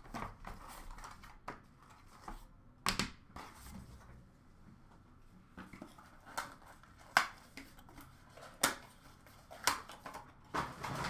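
Hands opening and handling a cardboard trading-card box and its packaging: scattered sharp taps, clicks and rustles, several of them louder about three seconds in and again in the second half.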